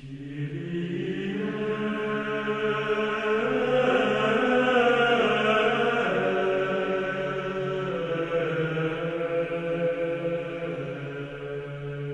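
Background music of choral chanting over a steady low drone. It starts out of silence, swells toward the middle and eases off near the end.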